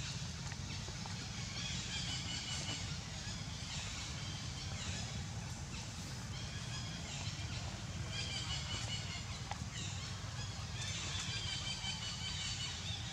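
Outdoor forest ambience: clusters of high-pitched chirping calls come every couple of seconds over a steady low rumble.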